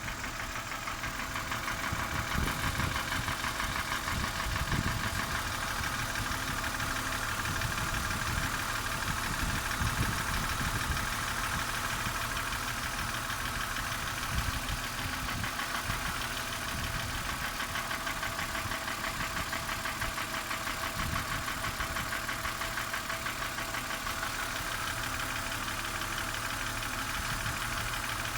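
BMW M52B25 straight-six engine idling steadily with a fast light ticking from the top end. The ticking is tied to crankcase vacuum: it fades away when the oil filler cap is opened.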